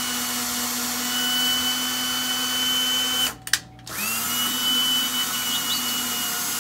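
Cordless drill driving a screw into drywall to bore a hole for a wall anchor in place of a pilot drill bit. The motor runs at a steady pitch, stops about halfway with a short click, then starts again and runs on.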